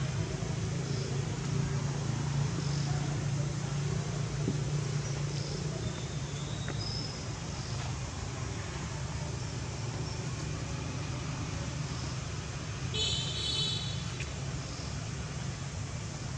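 Steady outdoor background noise with a low engine-like hum, stronger in the first several seconds, like distant motor traffic. A brief high-pitched call sounds about thirteen seconds in.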